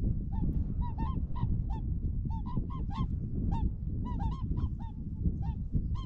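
A flock of swans calling: many short honking calls, several a second and overlapping, over a steady low rumble.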